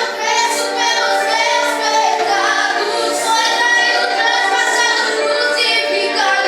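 A youth group singing a Christian worship song together, several voices holding long, sustained notes.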